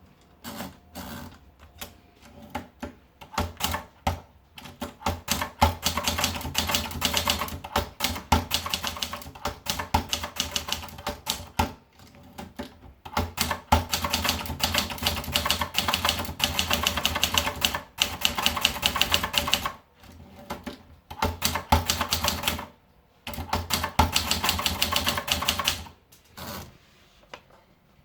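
Adler Tippa S portable manual typewriter being typed on: fast runs of key strikes clacking against the platen, in stretches of several seconds with short pauses between.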